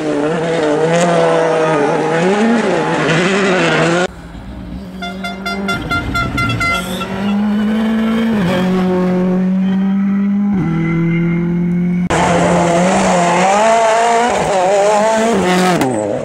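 Turbocharged four-cylinder rally car engines revving hard through corners in quick cuts, the pitch rising and falling with the throttle over tyre and road noise. In the middle stretch a car holds steadier revs, with two sudden steps in pitch.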